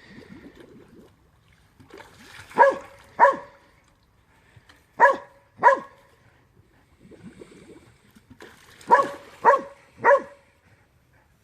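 A dog barking in short, sharp barks: a pair, another pair, then three in quick succession, with faint rustling between.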